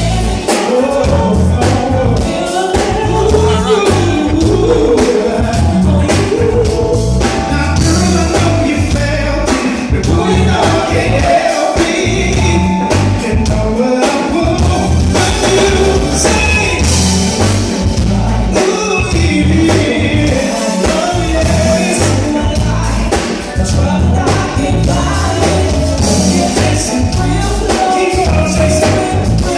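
Live R&B band playing a groove on drums and bass, with a voice singing over it.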